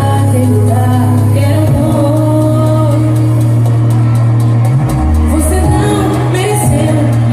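Loud music with a singing voice over a heavy, held bass; the bass drops lower for about a second just past the middle.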